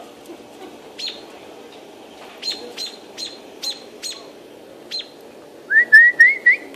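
A bird giving sharp alarm calls while defending its nest: short, high chips spaced irregularly, then near the end a quick run of four louder rising-and-falling notes.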